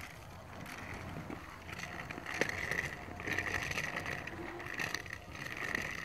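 Small plastic wheels of a child's three-wheeled kick scooter rolling over asphalt, a steady rolling noise that grows louder about two seconds in.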